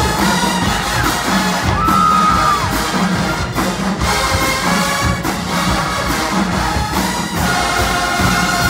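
Marching band playing loudly: massed trumpets, trombones and sousaphones over a steady drumline beat.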